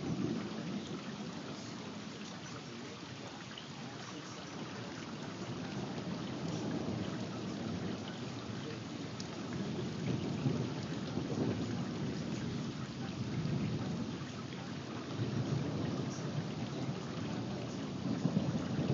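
Thunderstorm: steady rain with low, rolling thunder that builds about a third of the way in, peaks around the middle, and swells again near the end.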